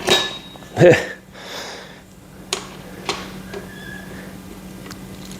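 Metal Allen key clinking and clicking against the heads of the M8 seat bolts as they are tightened down by hand, with a sharp ringing clink at the start and a few lighter clicks later. A short vocal sound comes about a second in.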